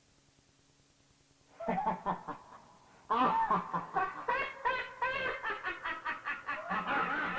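Cackling laughter, a spooky sound effect. It starts after a moment of faint hum and breaks into louder, rapid cackles about three seconds in.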